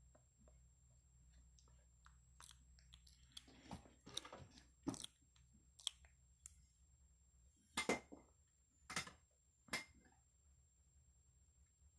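Java macaques making soft wet clicks and smacks with their mouths close to the microphone, scattered and irregular, with the loudest few near the end.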